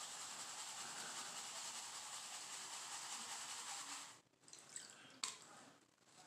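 Faint steady swishing of water as a black gold pan is shaken and dipped in a tub of muddy water to wash down paydirt. The swishing stops about four seconds in, then a few small splashes and a sharp click follow.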